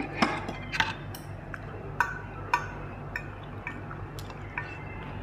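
Metal spoon and fork clinking on a glass bowl and plates while serving noodles in curry broth, with a little liquid dripping. There are about nine separate clinks, each with a short ring.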